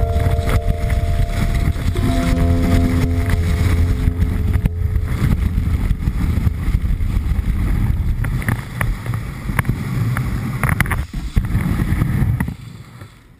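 Wind rushing over a ski camera's microphone, with skis running on snow, during a downhill run; the noise drops away sharply near the end as the skier slows to a stop.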